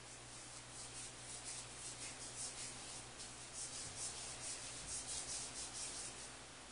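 Soft, rhythmic rubbing or scraping strokes, about three a second, a little louder in the second half.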